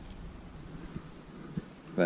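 Faint, even outdoor background noise with a few soft ticks and no distinct source.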